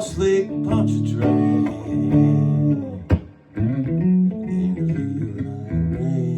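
Guitar playing an instrumental passage of a slow blues song: plucked notes over held low bass notes, with a sharp click and a brief drop about three seconds in.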